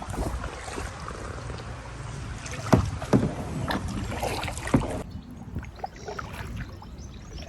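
Kayak paddles working in river water, with a few sharp paddle hits about three seconds in and again just before five seconds, over low wind rumble on the microphone.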